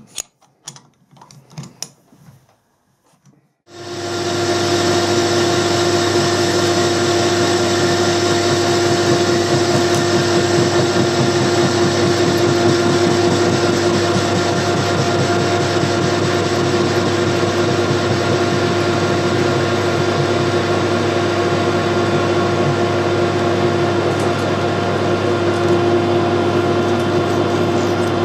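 A few metal clicks and knocks as a lathe's four-jaw chuck is adjusted with its key. About four seconds in, the metal lathe starts and runs steadily with a constant hum and whine, the chuck spinning the workpiece against the tool.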